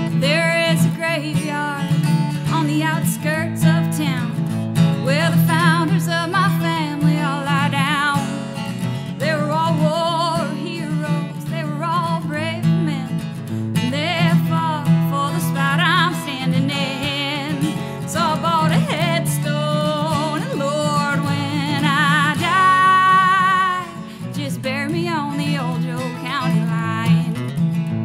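Acoustic guitar strummed steadily while a woman sings a country melody over it, holding some notes with a wavering vibrato.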